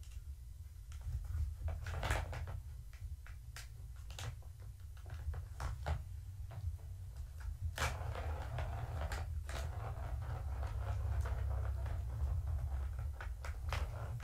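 Plastic ball rattling around a Catit circular track toy as kittens bat at it, with scattered sharp plastic clacks. The loudest clack comes about eight seconds in, followed by a longer stretch of rolling rattle, over a steady low hum.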